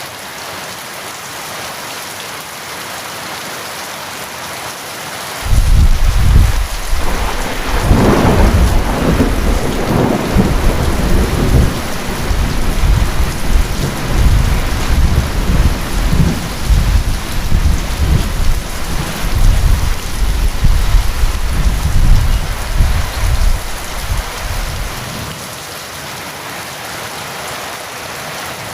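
Steady rain with a thunderclap about five seconds in, breaking suddenly and rumbling on for some twenty seconds before dying away, leaving the rain alone near the end.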